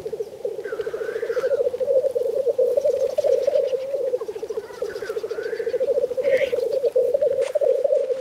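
Black grouse males at a lek making their continuous bubbling, cooing display song (rookooing), a low pulsing burble that never stops. A few short, higher rising-and-falling calls sound over it.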